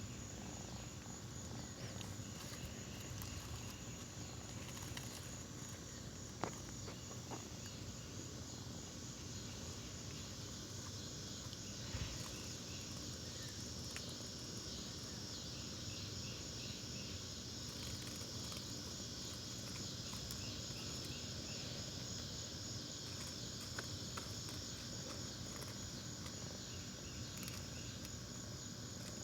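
Cicada buzzing steadily with a high, continuous drone that grows stronger in the second half, with a couple of short faint knocks.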